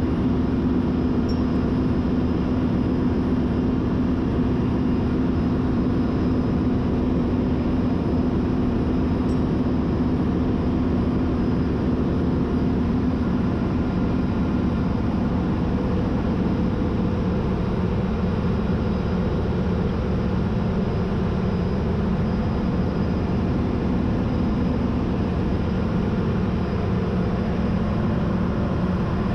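Steady, loud drone of ship's engine-room machinery, a low hum whose main tone drops a little lower a little past halfway through.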